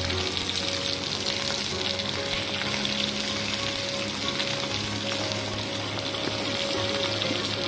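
Eggplant and potato pieces sizzling steadily as they fry in hot oil in an iron kadai.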